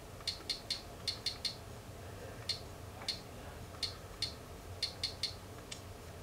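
Typing on a smartphone's touchscreen keyboard: about sixteen short, light clicks in quick, uneven runs as the text is keyed in.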